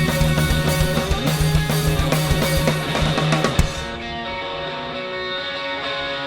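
Rock band playing an instrumental passage live, with electric guitar and drum kit. About three and a half seconds in, the drums stop and sustained guitar chords ring on alone.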